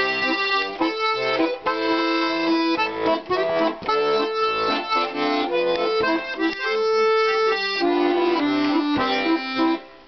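Button accordion playing an instrumental introduction: a melody over held chords, with a short pause near the end before the next phrase.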